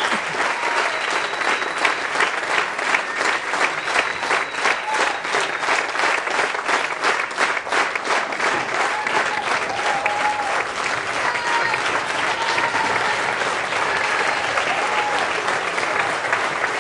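Theatre audience applauding, with a few cheering voices; for a few seconds in the middle the clapping falls into a steady beat.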